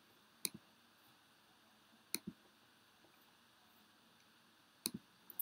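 Computer mouse clicking faintly: three quick double clicks about two seconds apart, with one more small click near the end, as the on-screen pen tool is re-selected after it stopped working.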